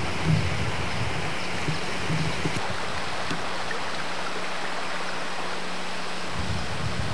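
River whitewater rushing steadily over rapids, a constant hiss of moving water; a low rumble beneath it drops away for a few seconds midway and returns.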